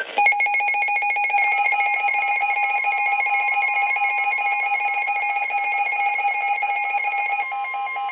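A weather radio receiver's alert alarm, a loud, rapid electronic beeping, sounding for an incoming Avalanche Warning, with the steady NOAA warning alarm tone underneath.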